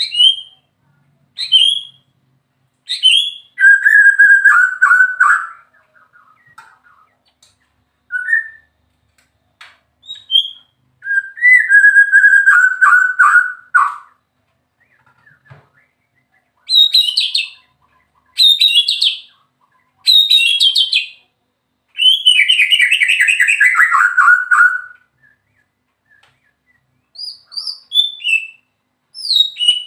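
White-rumped shama (murai batu) singing: loud whistled phrases with short pauses between them, several ending in a long, fast trill that falls in pitch.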